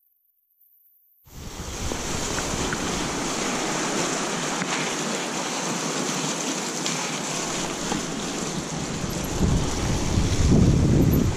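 Silent for about the first second, then the steady rushing noise of a mountain bike ride on a dirt and snow track: wind over the action camera's microphone, mixed with the tyres rolling over the rough surface. Heavier, low wind buffeting comes in near the end.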